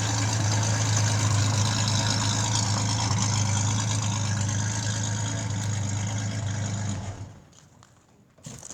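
Service truck's engine idling steadily, then stopping abruptly about seven seconds in. A short knock follows near the end.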